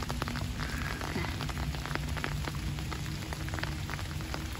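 Steady rain falling, with many small, sharp ticks of drops striking close by.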